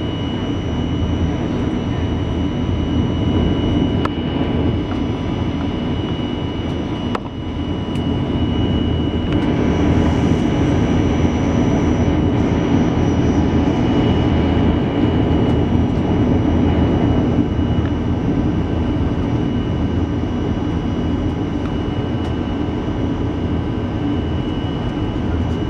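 Steady jet-engine and airflow noise inside the cabin of an Airbus A319, with a thin high fan whine held on top. A couple of faint clicks and a brief dip about seven seconds in.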